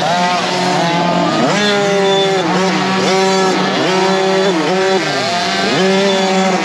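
Small two-stroke youth motocross bike's engine, heard from on board, revving up and dropping back again and again as the throttle is opened and closed.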